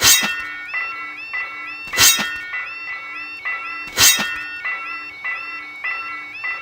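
Cartoon soundtrack music: a short synthesized note pattern repeats over a steady drone, with a loud sharp hit three times, about two seconds apart.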